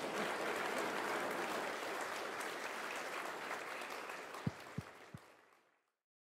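Audience applauding, fading out near the end into silence, with three short low thumps just before it dies away.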